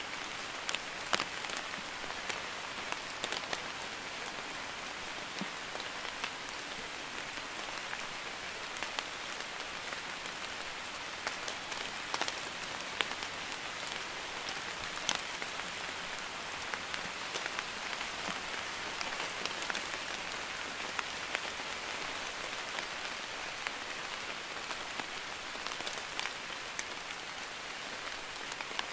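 Light drizzling rain falling steadily: an even hiss dotted with the sharp ticks of individual drops landing.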